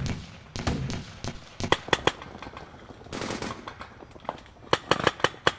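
Paintball markers firing, sharp pops in quick volleys of several shots a second, with single shots between them.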